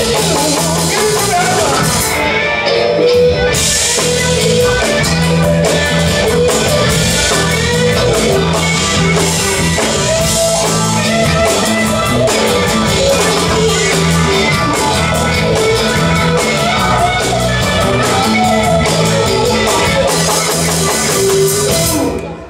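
Live rock band playing: electric guitars, bass and drums. The song stops suddenly near the end.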